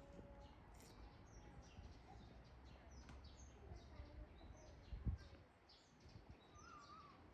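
Faint outdoor ambience of small birds chirping repeatedly over a low rumble, with one dull thump about five seconds in.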